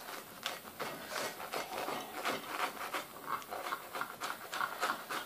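Knife sawing through a toasted grilled ham and cheese sandwich: a run of faint, irregular rasping scrapes as the blade works through the crisp bread.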